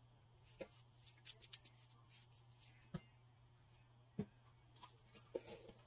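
Near silence: a faint steady room hum with a few soft scattered clicks and rustles.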